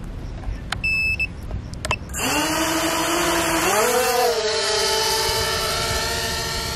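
Small quadcopter drone taking off: a short electronic beep about a second in, then the motors and propellers start about two seconds in with a whine that rises in pitch as the throttle comes up and then holds steady as it flies.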